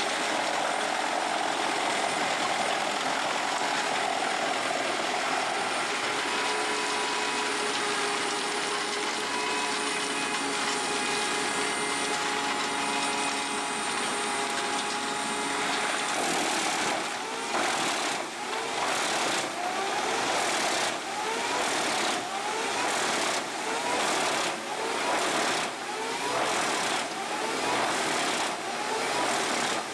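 Industrial wood shredder running: a steady grinding machine noise, which about halfway through turns into an even pulsing, a little more than once a second, each pulse with a short rising whine.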